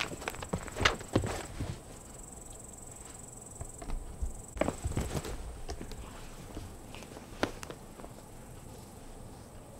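Two cats, a red tabby-and-white and a red Abyssinian, play-fighting on a rug: scuffling, soft thuds and paw patter in two short bouts, at the start and again around the middle, with a single sharp tap later on.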